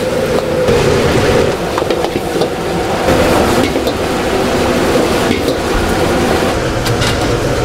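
Egg fried rice being stir-fried in a steel wok: a metal ladle scraping and pushing the rice around the pan, with a few sharp clinks of ladle on wok, over a steady noise.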